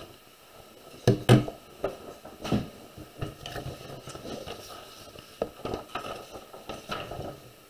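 Desk handling noises: a few sharp knocks and taps about a second in, then softer scattered tapping and shuffling as a sheet of exam paper is moved on the desk.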